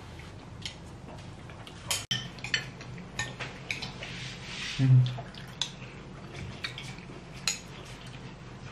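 Metal cutlery clinking and scraping against plates and bowls while people eat, in scattered irregular clicks. A brief low thud about five seconds in is the loudest sound.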